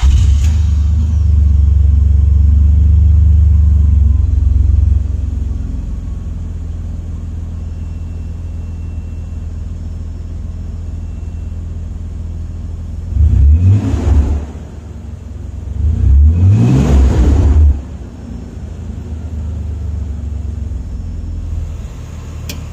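Nissan VG30E 3.0-litre V6 just after starting, idling high for about five seconds, then dropping to a lower steady idle. It is revved twice in the middle, the second rev longer, each rising and falling back to idle.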